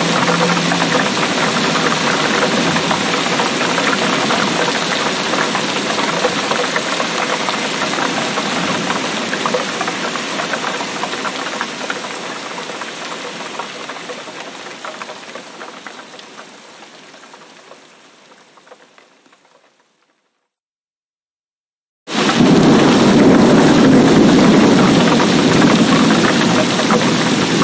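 Heavy rain pouring in a steady hiss. It fades away over several seconds to silence, then cuts back in abruptly a couple of seconds later, heavier in the low rumble.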